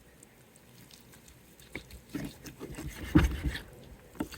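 Knife cutting and scraping along a raw chicken carcass's backbone to free a breast, with wet handling noises and a few soft knocks, the loudest about three seconds in, after a quiet start.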